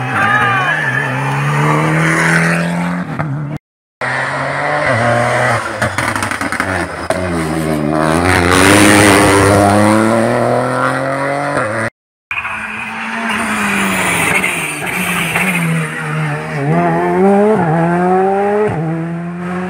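Rally cars at full attack on a tarmac stage, engines revving hard and rising and falling in pitch as they shift up and down through the gears, with a short tyre squeal near the start. The sound cuts out briefly twice between passes.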